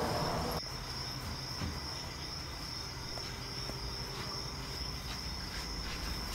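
Quiet room tone with a steady high-pitched whine and a few faint ticks; the background drops a little about half a second in.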